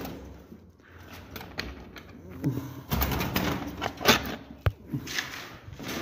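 Pigeons cooing, with a couple of sharp metal clicks or knocks from the cage door latch about four seconds in.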